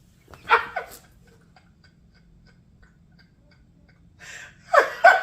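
A woman's short wordless vocal sounds, an exclamation about half a second in and another, laugh-like one starting near the end, with faint light ticking in between.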